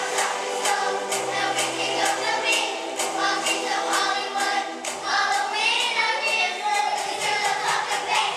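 Children's choir singing with musical accompaniment that has a steady beat of about three to four strokes a second.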